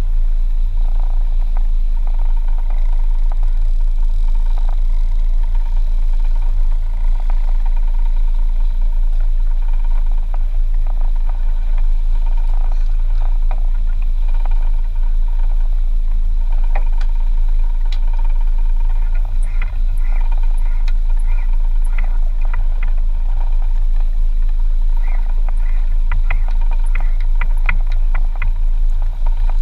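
Fishing boat's engine running steadily, a loud low drone. A few light clicks and taps near the end.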